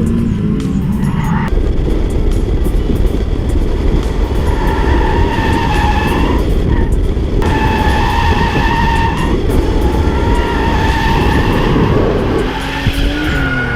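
Drift car driven hard at full throttle, engine running loud under a heavy rumble, with tyres squealing in long steady screeches that break off briefly about halfway through. Near the end the engine note rises and falls as the revs change.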